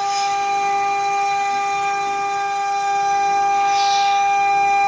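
CNC router spindle milling through aluminum-plastic composite panel and acrylic sheet: a steady, high-pitched whine made of several fixed tones over the hiss of cutting. A short swell of hissy chip noise comes about four seconds in.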